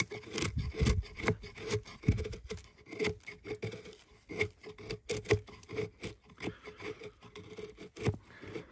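Knife blade shaving curls down a split stick of kindling to make a feather stick: a quick run of short scraping strokes, about two or three a second.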